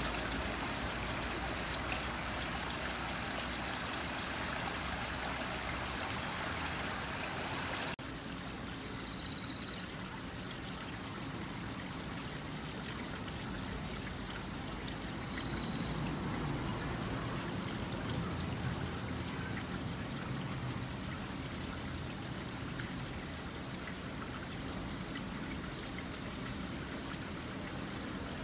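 Steady rushing background noise that turns abruptly duller about eight seconds in, with two brief high peeps later on.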